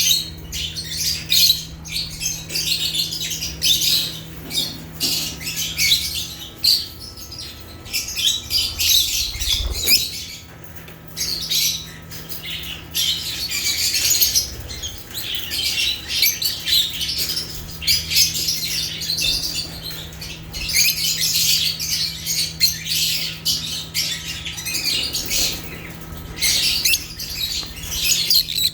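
A group of lovebirds chirping and squawking continuously, many rapid, shrill overlapping calls. A faint steady hum sits underneath.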